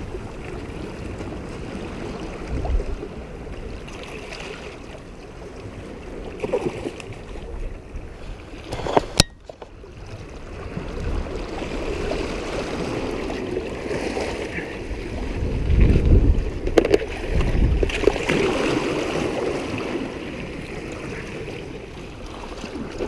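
Small waves washing and splashing over shore rocks, swelling and easing, loudest about two-thirds of the way through. A single sharp click about nine seconds in.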